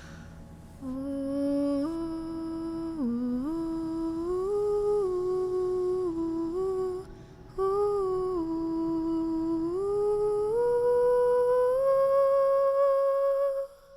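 A voice humming a slow stepwise melody, the close of the background song. It comes in two phrases with a brief break in the middle and cuts off near the end.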